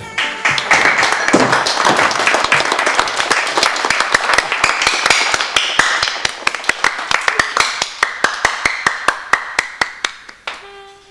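A crowd applauding, dense clapping that thins out to a few scattered claps near the end.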